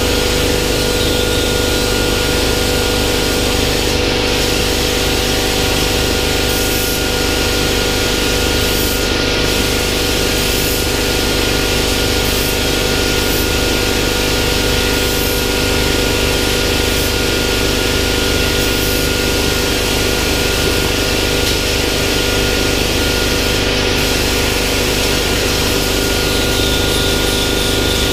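Steady hum and hiss of a running plasma-cutting setup, a Hypertherm 65 plasma cutter on a CNC plasma table, while the torch moves between cuts on a steel sheet. A higher hiss, the plasma arc cutting, comes in about two seconds before the end.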